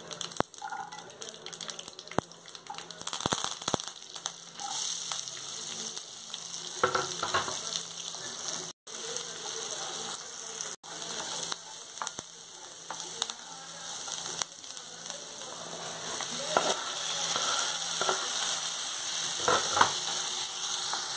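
Hot oil sizzling in a nonstick kadai as a tempering of seeds and dal, then chopped onions, garlic, green chillies and curry leaves, then tomatoes, fries. A spatula scrapes and stirs every few seconds.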